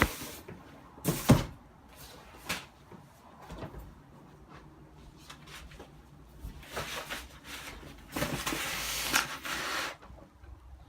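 Packages being handled: a loud double knock about a second in, scattered lighter knocks, then about two seconds of rustling near the end.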